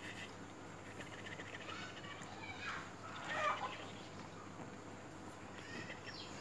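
A three-month-old baby cooing: a few short, high vocal sounds with sliding pitch, the loudest about three and a half seconds in.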